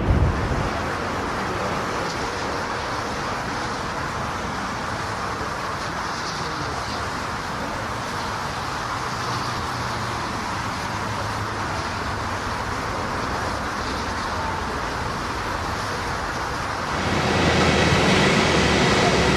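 Jet airliner engines giving a steady rush of noise. About seventeen seconds in it grows louder and a thin high whine comes in.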